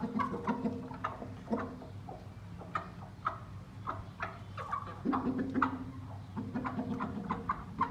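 Aseel chickens clucking in many short, repeated calls, over a steady low hum.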